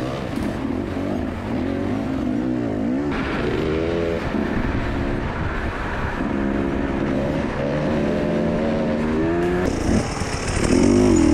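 Enduro dirt bike engine revving up and down over and over, its pitch rising and falling as the rider works the throttle through mud and ruts. The sound changes abruptly about three seconds in and again near the end.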